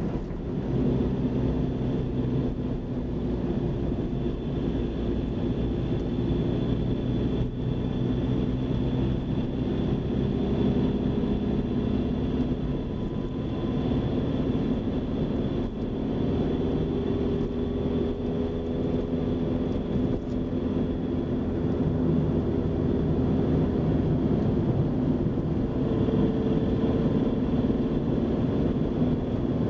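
Car engine and tyre noise heard from inside the cabin while driving, a steady drone whose engine note shifts a little now and then.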